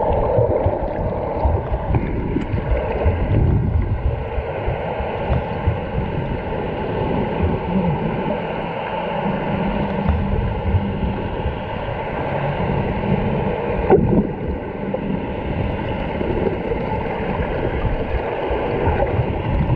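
Muffled underwater rush and gurgle of moving water and bubbles as snorkelers swim and kick their fins at the surface, heard as a steady, irregular noise.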